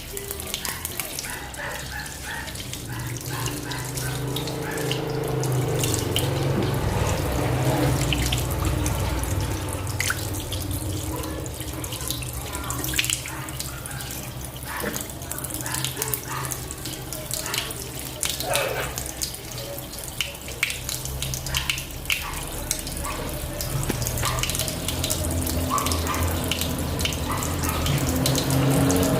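Water running from a tap into a sink, splashing as hands are washed under it.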